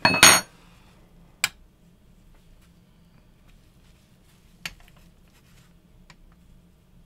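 A short metallic clatter with a brief high ringing, then a few sharp single clicks and taps. These come from small bubble levels being set onto the rifle's muzzle brake and handguard rail to check that the brake is aligned straight.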